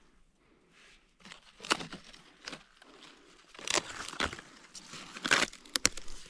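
Dry wood and brush crackling and crunching in irregular bursts, with a few sharp snaps or clicks near the end.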